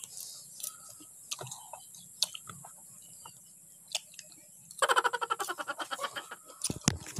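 Quiet eating sounds: spoons clicking against a plastic bowl and crisp unripe mango being bitten and chewed. A quick run of crisp ticks comes about two-thirds of the way through, and a few louder clicks come near the end.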